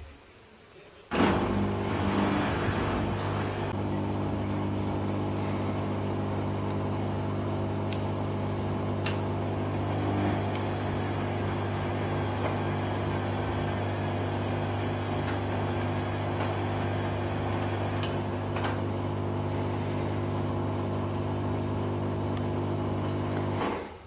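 Hotpoint Aquarius WMA58 washing machine giving out a loud, even motor hum that starts suddenly about a second in and cuts off just before the end, with a few faint clicks along the way.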